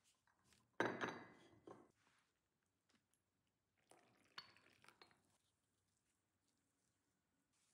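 Kitchenware clinking: a sharp knock with a brief metallic ring about a second in, and a lighter clink around four and a half seconds in.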